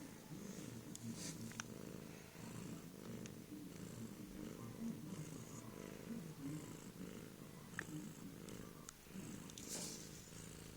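Cat purring steadily, with a few faint clicks and a short rustle about ten seconds in.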